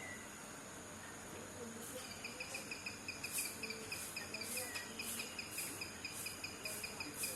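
Insects chirping: a fast, even high-pitched trill starts about two seconds in, with a slower higher pulsing about twice a second over a faint background hiss.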